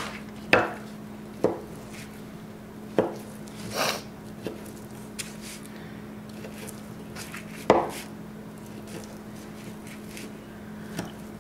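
Knife blade knocking through thick-cut bacon onto a thin plastic cutting mat, in irregular single chops a second or more apart. A steady low hum runs underneath.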